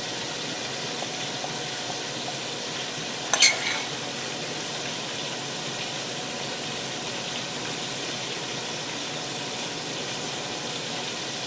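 Chicken wings frying in a pot of oil off-screen, giving a steady sizzle. About three seconds in, a spoon scrapes or clinks once against the potato skins and plate.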